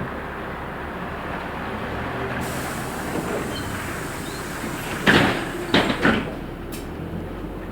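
Steady running and road noise inside a LiAZ 6213.65 articulated city bus under way, with three loud short knocks close together about five to six seconds in.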